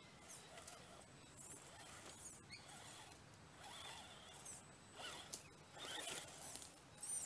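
Electric motors and gear drives of radio-controlled scale crawler trucks whining in short bursts as the throttle is worked while crawling, the pitch rising and falling with each push. Louder bursts come about five seconds in, around six seconds and near the end.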